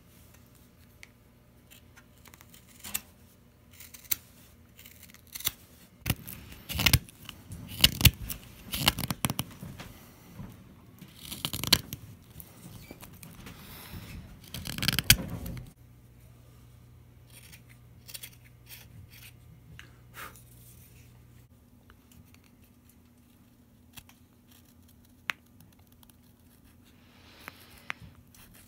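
Knife blade paring green sugar maple: a hook knife scooping shavings from a spoon bowl, in short scraping cuts. A dense, louder run of quick strokes comes from about six to fifteen seconds in, then the cuts grow sparse and lighter as a straight carving knife trims the spoon's neck.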